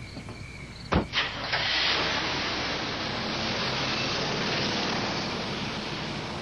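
A vehicle door slams shut about a second in, followed by a pickup truck driving off with a steady rushing noise.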